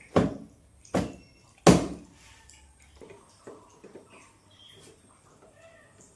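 Three sharp knocks within the first two seconds, the last the loudest, as a motorcycle seat is set down and pressed into place on the bike; faint clicks and rustles follow.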